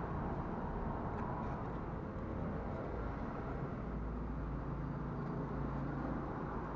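Small 5-axis CNC machine running a machining job, giving a steady mechanical hum and whir from its motors, with a few faint ticks.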